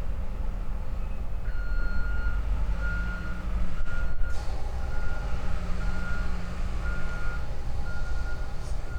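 A vehicle's backup alarm beeping about once a second over the steady low rumble of heavy diesel machinery working the log yard.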